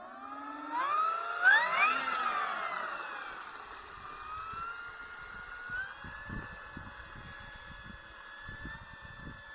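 Electric motor and propeller of an FMS 1.7 m P-51D RC warbird whining as the throttle is pushed up in steps over the first two seconds, then running at a steady high pitch. Wind gusts rumble on the microphone in the later seconds.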